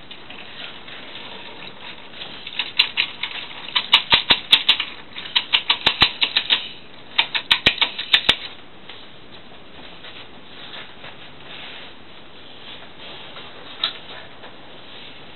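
Toy train rolling along a wooden window sill, its wheels clattering in several rapid bursts of sharp clicks, then coming to a stop; a single click follows later.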